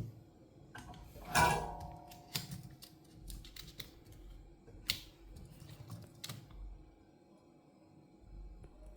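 Scattered light clicks and taps of hands handling laptop keyboard and case parts, the loudest about one and a half seconds in, over a faint steady hum.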